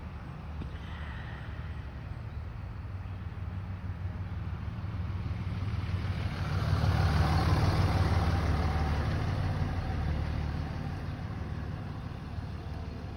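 A road vehicle going by: a low engine-and-tyre rumble that swells to its loudest about seven seconds in and then fades away.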